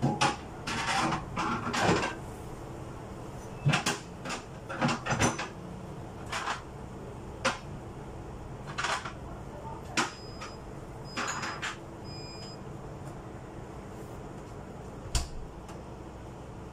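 Irregular knocks, clicks and short scrapes of things being moved and handled in a refrigerator being cleaned out, over a steady low hum.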